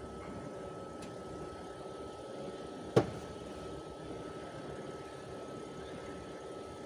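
A steady machine hum, like an engine idling, with a thin high whine running through it. One sharp knock comes about three seconds in.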